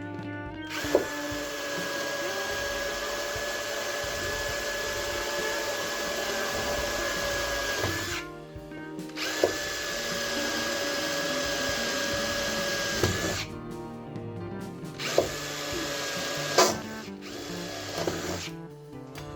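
Power tool motor running with a steady whine in three stretches (about seven seconds, then about three and a half, then a short burst of a second or so), stopping in between.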